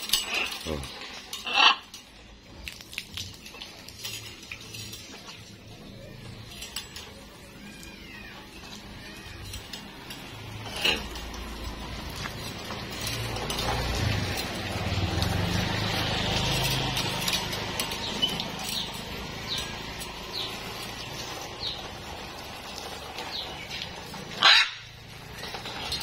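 Water spray splashing over a macaw on a stainless steel perch stand: a hiss of falling water that swells through the middle, with light metallic clinks. Two short, loud, sharp sounds stand out, one about two seconds in and one near the end.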